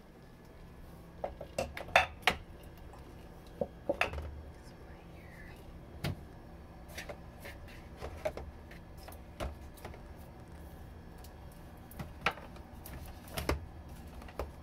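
Irregular clicks and knocks of items being handled and set down on refrigerator shelves. The sharpest knocks come about two seconds in, with another cluster near the end.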